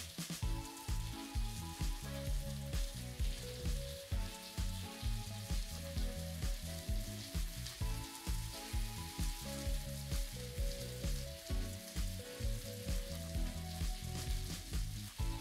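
Slices of sausage sizzling and frying in a pan on an electric stove, under background music with a steady beat and a stepping melody.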